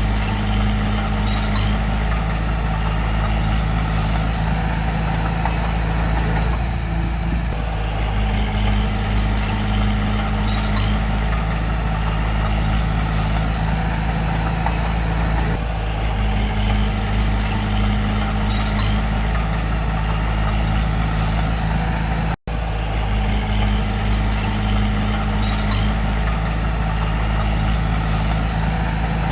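The diesel engine of a heavy earth-moving machine runs steadily. About every eight seconds its note deepens and strains for a few seconds, and short high squeaks or hisses come every couple of seconds. There is a brief dropout about two-thirds of the way through.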